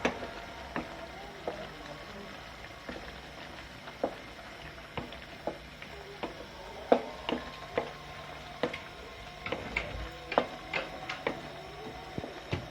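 A spoon knocking and clinking against a cooking pot as a chicken stew is stirred. The knocks are irregular and come thicker toward the end, over a faint steady hum.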